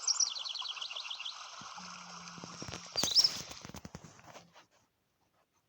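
Nature sound effect of a river: the steady rush of flowing water, with small birds chirping over it in quick rising notes at the start and again about three seconds in. It fades out about four and a half seconds in.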